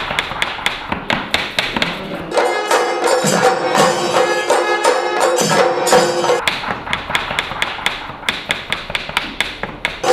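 Knife chopping vegetables on a board, sharp taps about five a second, alternating with Kerala chenda melam: chenda drums beaten with sticks in a fast rhythm over steady ringing tones.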